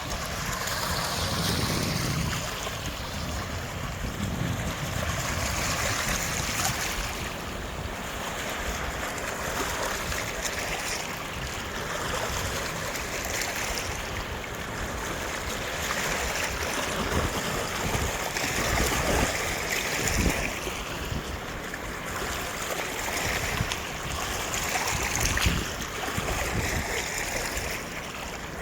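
Sea waves breaking on a pebble beach, each wash swelling and fading every few seconds.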